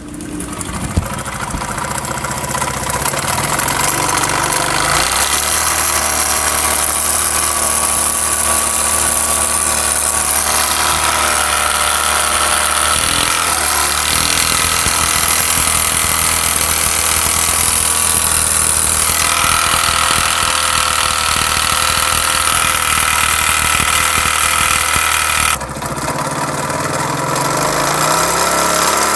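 Honda CD70's single-cylinder four-stroke engine running, its speed changing a few times, with the 'dug dug' knock of a worn-out connecting rod that the mechanic blames for the noise.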